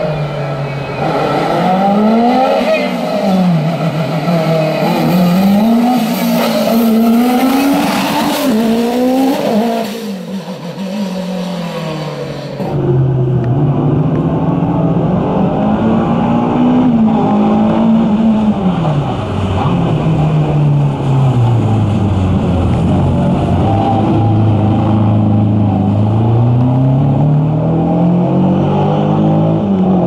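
Race car engine revving hard, its note climbing and dropping again and again through gear changes as it drives a slalom course. About 13 s in the sound cuts to a Renault Clio hatchback on a wet course, its lower engine note rising and falling as it weaves between cones.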